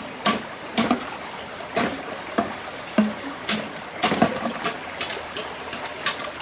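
Running stream water with a series of sharp, irregular knocks or splashes, about two a second.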